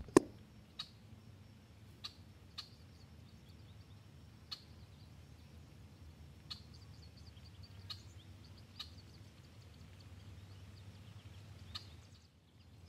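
A single sharp crack right at the start, then faint bird chirps over a low steady hum, with a few light scattered ticks.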